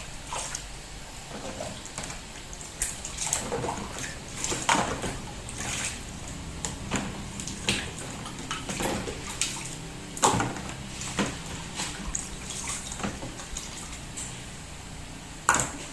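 Running water as feeding bottle parts are rinsed, with irregular knocks and clinks from the parts being handled, the sharpest about five, ten and fifteen seconds in.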